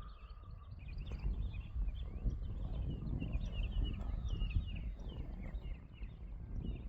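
Many small birds chirping in short, quick calls, over a steady low rumble.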